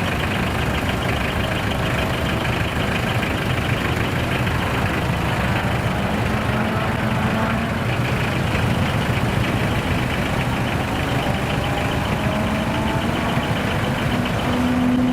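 Large diesel truck engines running steadily at idle.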